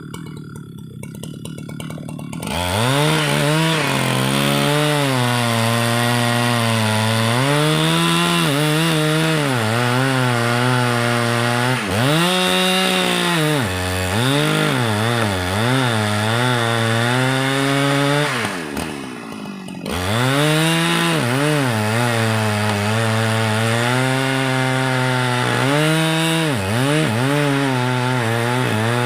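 Two-stroke chainsaw cutting red meranti timber. It runs low for about two seconds, then goes to full throttle, its pitch sagging and recovering again and again as the chain bites into the wood. A little past halfway it drops briefly to idle, then revs up and keeps cutting.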